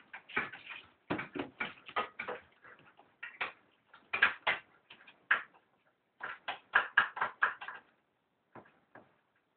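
A puppy's claws clicking and scrabbling on a hard floor as it dances about, in quick runs of taps broken by short pauses. The taps thin out to a few faint ones near the end.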